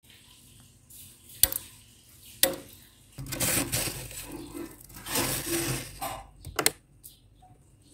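A metal spoon clinks sharply twice, about a second apart. Then come two stretches of crunching and scraping as soft, flaky freezer frost is dug into and pressed, and a quick double clink near the end.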